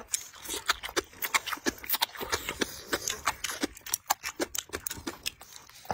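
Close-up eating sounds: slurping noodles and chewing braised pig's trotter, with wet lip smacks and a quick run of sharp mouth clicks.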